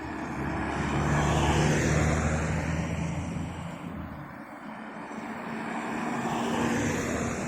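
Motor vehicle engine noise passing by, a low steady drone that swells about two seconds in, fades, and swells again near the end.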